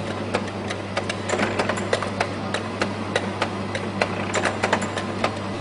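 Rotary suppository machine running: a steady low hum with sharp mechanical clicks, about three or four a second at a slightly uneven pace.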